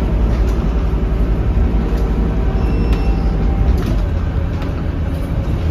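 Scania K230UB bus's five-cylinder diesel engine running under way, heard from inside the passenger cabin as a steady low drone. The engine note changes and eases slightly about four seconds in.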